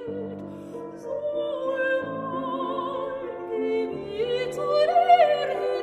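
Music: an operatic voice singing with vibrato over instrumental accompaniment, climbing to a louder, higher note near the end.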